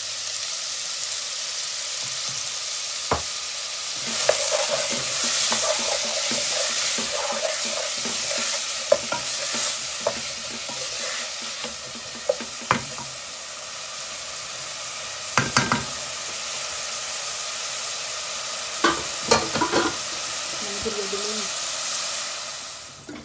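Chopped onions sizzling in hot oil in an aluminium pot and being stirred with a wooden spoon. The sizzle gets louder about four seconds in, and the spoon knocks against the pot a few times.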